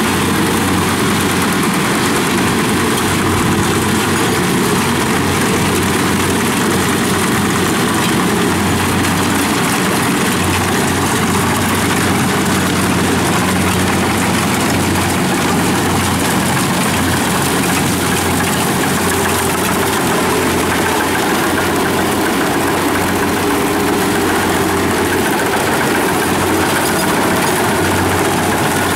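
Kubota DC-70 rice combine harvester running steadily while cutting: a constant diesel engine drone mixed with the clatter of its cutting and threshing machinery.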